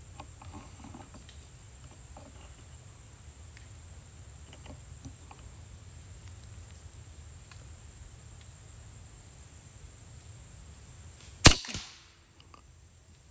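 A single shot from a .25 calibre Edgun Leshiy 2 PCP air rifle near the end, a sharp report with a brief tail, over a faint woodland background.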